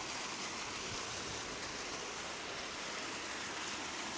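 Steady rush of churning river water, the flow pouring in and boiling up white and foamy below a concrete wall.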